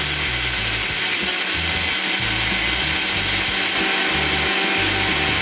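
Electric mixer-grinder (mixie) running steadily at speed, dry-grinding roasted toor dal, roasted gram, chillies and garlic into a fine powder in its steel jar.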